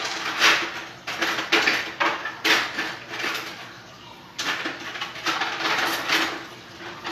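Kitchen utensils and containers being handled and rummaged through, a series of irregular clattering and rustling sounds, over a faint steady hum.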